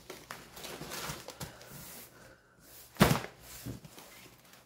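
Handling noise as a fabric compression packing cube is rustled and lifted out of a hardshell carry-on suitcase, with one sharp knock about three seconds in.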